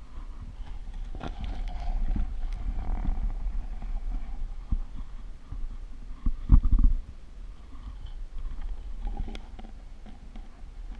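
Muffled water sloshing and gurgling against a camera held half-submerged at the surface of a shallow pool, with a steady low rumble, scattered small knocks and one louder thump about six and a half seconds in.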